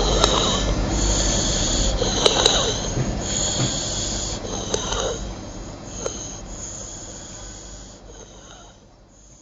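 A child's biphasic stridor: harsh, high-pitched noisy breathing on both the breath in and the breath out, one breath quickly after another, with a few short clicks. It fades out over the last few seconds. This is the sign of a narrowed upper airway, here a subglottis narrowed by laryngeal polyps and granulation tissue.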